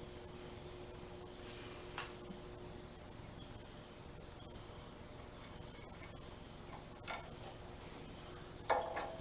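Insects chirping: a steady high trill under a pulsed chirp about three times a second, with a few light knocks, the loudest near the end.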